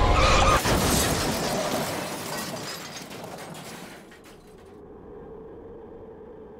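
Car crash: a loud smash with shattering glass about half a second in, then debris rattling and tinkling that dies away over about four seconds, leaving a faint steady hum.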